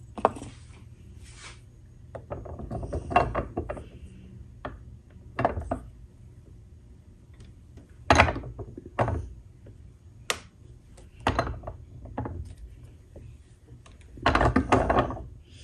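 Irregular metallic clicks, taps and short scrapes of a silver spread knife being handled and set in place on an arbor press, with a longer rattling cluster near the end.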